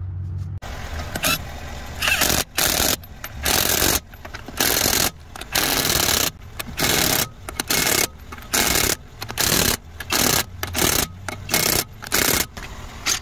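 Cordless impact wrench tightening a car wheel's lug nuts, hammering in a long series of short bursts, about one to two a second, after a quieter start.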